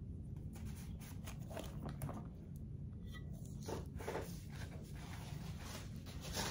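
Faint rustling and small clicks of handling, scattered irregularly over a steady low hum.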